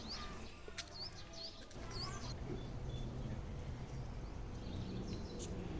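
A few short, high bird chirps in the first two seconds, over a steady low background hum and noise.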